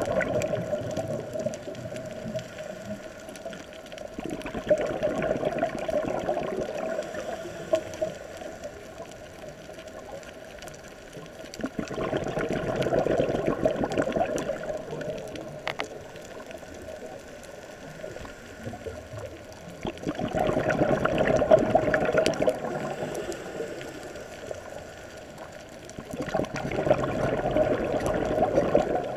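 A scuba diver breathing through a regulator, heard underwater: a rush of exhaled bubbles about every seven seconds, each lasting two to three seconds, with quieter gaps between.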